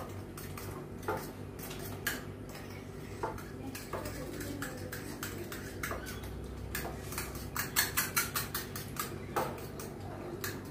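A metal spoon beating eggs and chopped vegetables in a glass bowl: quick clinks of metal against glass, coming fastest and loudest about seven to nine seconds in.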